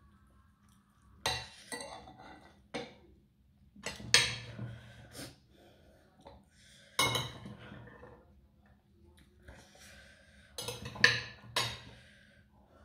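Metal fork and spoon clinking and scraping on a ceramic plate in several separate clatters a second or two apart, the loudest about four seconds in and near the end.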